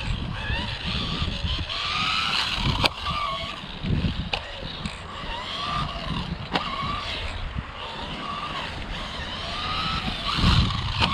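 Electric 1/12-scale RC buggy being driven, its motor whine rising and falling as the throttle is worked, over a low rumble of tyres on the ground. A few sharp clicks come through about three, four and a half, and six and a half seconds in.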